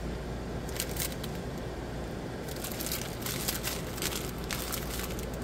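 Clear plastic packaging crinkling in short irregular bouts as a sleeve of bagged diamond-painting drills is handled and squeezed.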